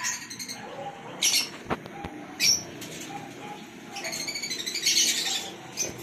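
Racing pigeons' wings flapping as a small flock of young birds flies overhead, in a few short bursts, the longest about four to five and a half seconds in.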